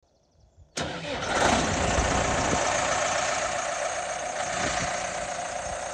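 Diesel tractor engine running steadily, its sound coming in suddenly about a second in.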